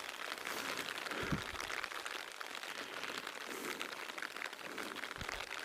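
Rain falling in forest, a steady pattering of many fine drops, with two soft low thumps, one about a second in and one near the end.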